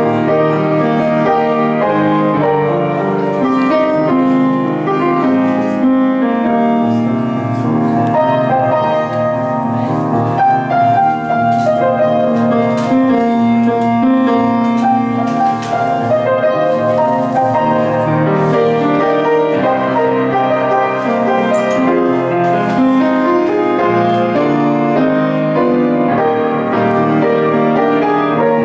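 Solo acoustic piano played live: a flowing tune over chords, with notes changing steadily and no singing.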